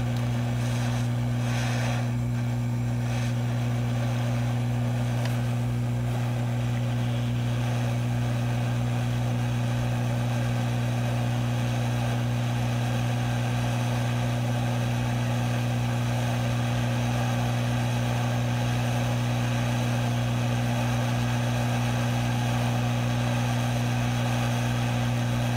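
Hot air rework station running while it reflows a PMIC chip on a phone logic board: a steady low hum with a soft, even rush of air.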